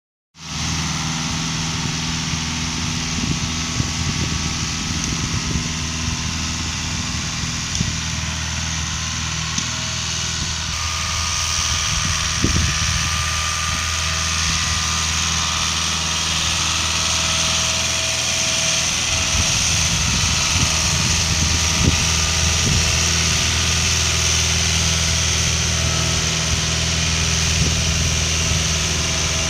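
New Holland tractor's diesel engine running steadily at an even pitch, with a hiss over its low hum.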